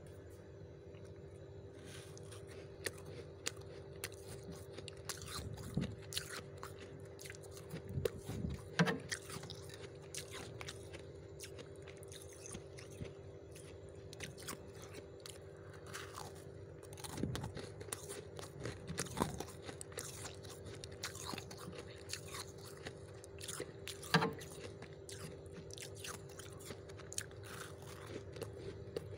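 Soft freezer frost being bitten and chewed: irregular crisp crunches scattered throughout, in louder clusters now and then. A steady hum runs underneath.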